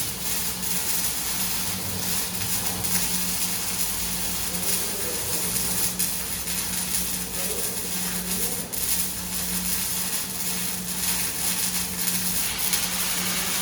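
Semi-automatic (MIG/MAG) welding arc crackling and hissing steadily, with a steady low hum beneath it.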